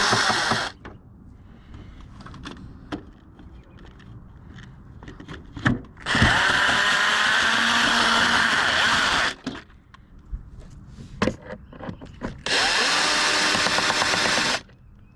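Power drill driving out Phillips head screws from the air filter box. It runs in three steady spells of one to three seconds each: one ending just after the start, one in the middle and one near the end. Light clicks and handling come between the spells.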